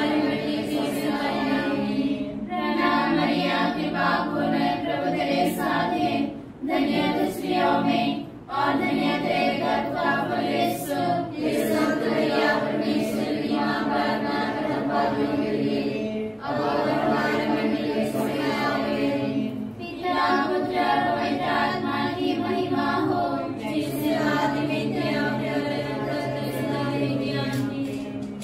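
A group of women singing a devotional hymn together in unison, in long phrases with short breaks for breath.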